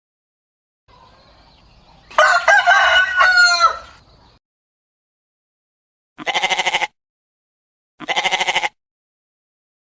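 A rooster crowing once, about two seconds in, followed by two short, rapidly pulsing calls a little over a second apart.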